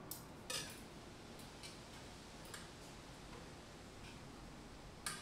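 Faint, scattered light clicks and taps of small objects being handled on a table, with quiet room tone between them; the sharpest click comes near the end.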